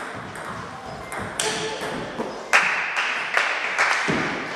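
Table tennis ball clicking sharply off the rackets and the table in an irregular series of hits during a rally, echoing in a sports hall. About halfway through, a louder burst of noise lasts over a second.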